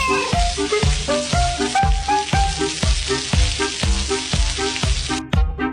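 Food sizzling in a frying pan, a steady hiss that cuts off near the end, over background music with a steady beat.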